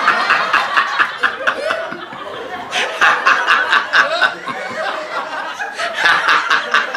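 A man laughing in quick bursts, three spells of laughter with short lulls between.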